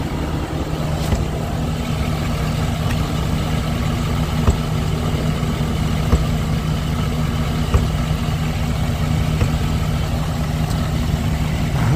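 Ford F-250 pickup's engine idling steadily, with a few short sharp knocks over the top.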